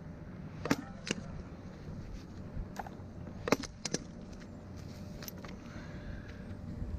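Scattered light metallic clinks and knocks of tree-climbing and rigging gear, such as carabiners, over a faint steady low hum.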